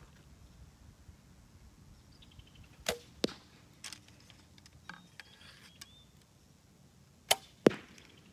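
A Diamond compound bow is shot twice, about four seconds apart. Each shot is a release thump with a short ring, followed about a third of a second later by a sharp crack as the arrow strikes the target.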